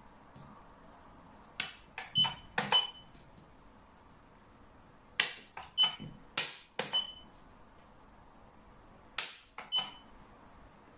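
Xiangqi pieces being clacked down onto the board in three quick flurries of sharp clicks, about a second or two in, in the middle, and near the end. Several of the clicks are followed by a short high beep.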